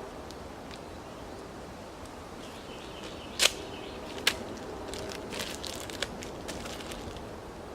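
Steady outdoor background noise, broken by two sharp knocks or snaps about three and a half and four and a quarter seconds in, then a run of lighter clicks.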